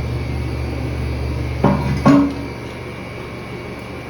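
Two short knocks about half a second apart, the second leaving a brief low ringing tone, over a steady low machine hum that drops in level right after the second knock.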